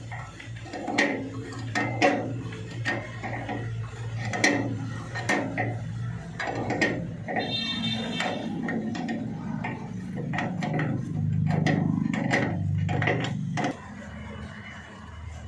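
Hand tools loosening 18 mm radiator mounting bolts: irregular metallic clicks and clanks of a spanner working on the bolts, over a steady low hum.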